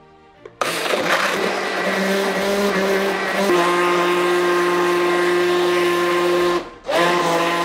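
Homgeek mini blender's motor running, blending fruit with rum and juice: it starts about half a second in with a steady whine, drops a little in pitch a few seconds in, cuts out briefly near the end and starts up again.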